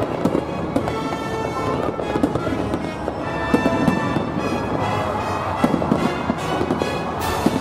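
Aerial fireworks bursting in a string of sharp bangs over music playing throughout, with a short hiss near the end.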